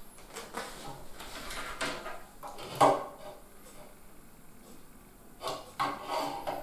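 Handling clicks and clatter of an IDE ribbon cable connector being fitted onto a PATA flash module's 40-pin adapter in an open computer case. There is a sharp click about three seconds in and a few more knocks near the end.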